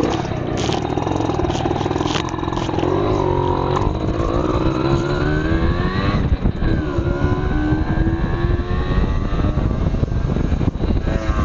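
Aprilia Classic 50 moped's two-stroke single-cylinder engine pulling away and accelerating. Its pitch climbs over the first six seconds, dips about six and a half seconds in, then climbs again, with wind noise on the microphone.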